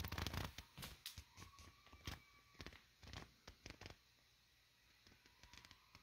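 Faint handling noise from a handheld camera being moved: irregular rustling and clicking, loudest in the first second and thinning out after about four seconds.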